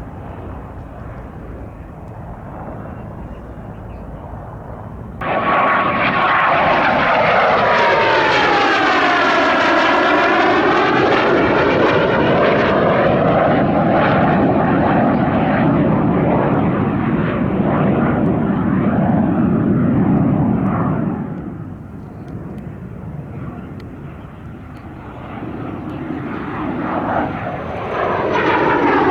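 Fixed-wing aircraft flying past low: a fainter engine sound first, then a loud engine sound cuts in about five seconds in, with a whining tone that falls in pitch as the aircraft passes. The sound fades about twenty seconds in, and another aircraft comes in loud near the end.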